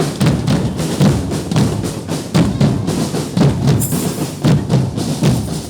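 Percussion band of bass drum and snare drums beating a steady rhythm, about two strokes a second.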